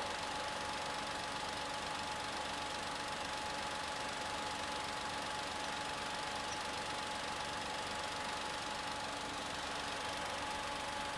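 The Perodua Ativa's 1.0-litre three-cylinder turbo petrol engine idling steadily, heard up close in the open engine bay, with a steady high whine over an even hum.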